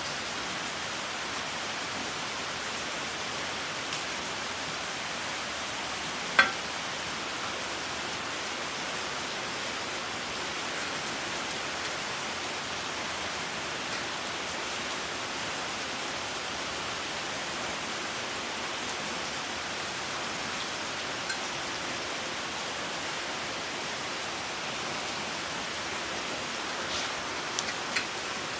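Steady hiss throughout, with one sharp metallic click about six seconds in and a few light taps near the end as steel pieces are handled on the pipe.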